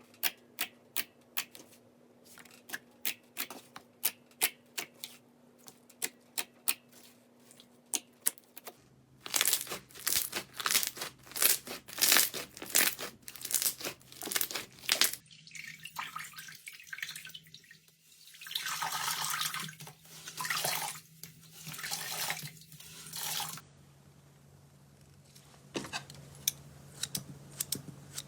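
Slime being pressed and squished by hand: crisp separate pops at first, about two a second, then denser crackling and wet squelching swells.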